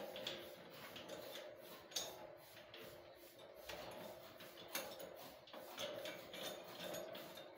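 Scattered light metal clicks and clinks of a satellite dish's mounting bracket being fitted and tightened onto a steel pole, with a sharper knock about two seconds in and another near five seconds.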